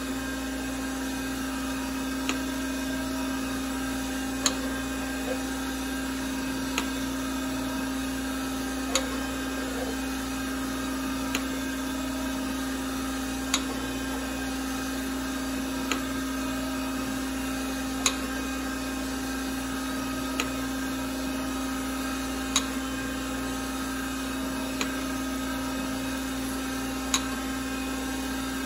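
DoALL automatic surface grinder running, with a steady spindle hum and a sharp click about every two and a quarter seconds as the table reverses at each end of its back-and-forth stroke. The wheel is being fed down a few ten-thousandths at a time to touch off on the part and is barely grinding yet.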